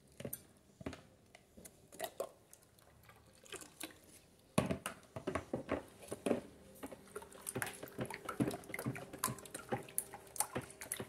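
Liquid soap in a plastic tub: a few drips and small splashes as liquid is poured in from a plastic jug, then from about four and a half seconds in a dense run of sloshing and splashing as it is stirred with a plastic paddle.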